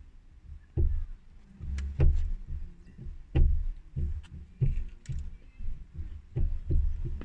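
A person biting into and chewing a burger close to the microphone: irregular wet mouth clicks and smacks mixed with low knocks from handling, about a dozen of them over several seconds.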